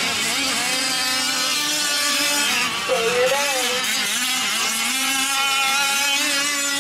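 Several 5th-scale gas RC off-road trucks' small two-stroke engines racing together. The overlapping engine notes climb and fall in pitch as the throttles open and close.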